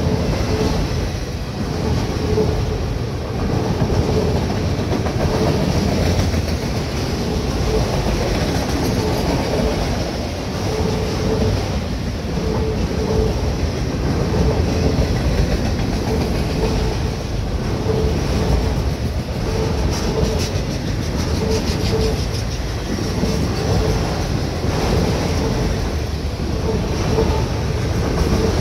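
Freight train of autorack cars rolling past: a steady rumble and clatter of steel wheels on the rails. Over it, a short ringing tone repeats over and over, the grade-crossing bell.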